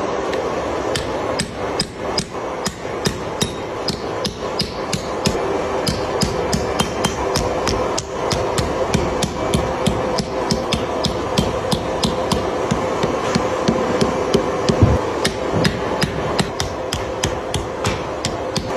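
Hammer striking metal in a fast, steady run of blows, about three to four a second, over a steady background hum.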